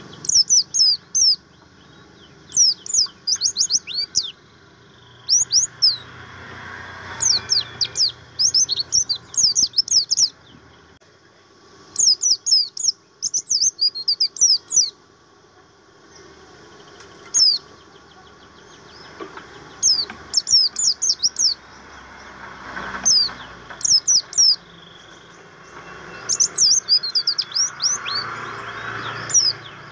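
A buxtoni white-eye (pleci) singing: repeated quick phrases of high, sharply sweeping chirps and twitters, each a second or two long, broken by short pauses.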